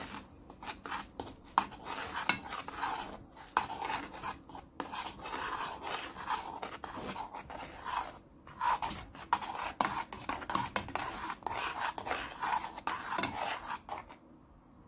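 A metal spoon stirring milk and melting chocolate in a metal saucepan, scraping the pan in quick repeated strokes. The stirring pauses briefly about eight seconds in and stops about a second before the end.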